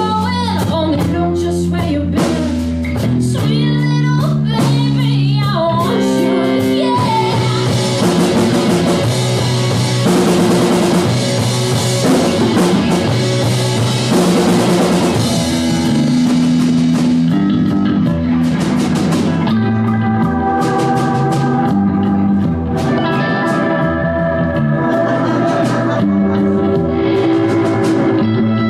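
Live rock band playing: a woman sings over electric guitars and a drum kit for the first several seconds. Then comes an instrumental stretch of busy drums and cymbals, with the electric guitar playing held notes near the end.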